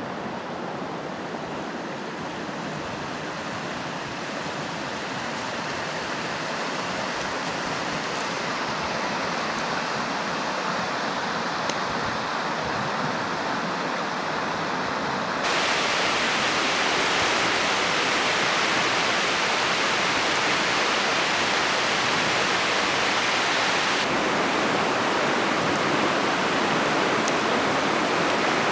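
Kilchis River rushing over its bed, a steady hiss of water with no pauses. It grows louder, jumps up suddenly and brighter about halfway through, and shifts again near the end.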